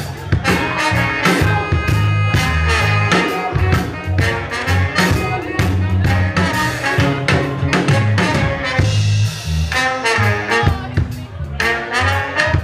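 Live band playing with a horn section of saxophone, trombone and trumpet over electric guitar, bass guitar and drums, with a steady drum beat and held horn notes.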